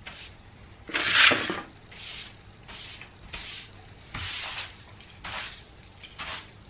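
Broom bristles sweeping across a hard wood-look floor in short strokes, roughly one a second, the loudest about a second in.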